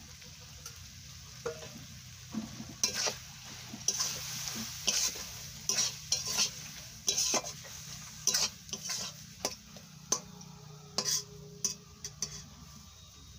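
Metal spatula stirring and scraping vegetables around a metal karai, mixing in cumin paste. A run of scrapes and knocks, about one or two a second, starts a couple of seconds in and stops near the end, over a steady sizzle of the simmering curry.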